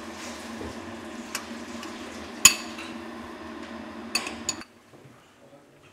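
A metal spoon clinking against a china bowl a few times, sharp single clicks with the loudest about halfway through, as sour cherries are spooned onto dolma in a pot. A steady low hum runs underneath and cuts off suddenly near the end.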